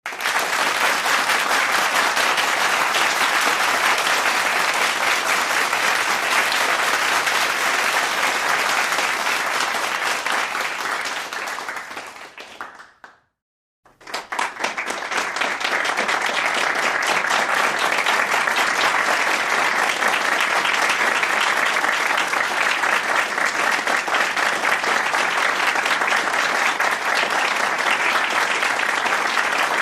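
Crowd applause sound effect: a dense round of many people clapping that fades out about thirteen seconds in, then, after a brief silence, a second round of crowd applause that starts abruptly and keeps going.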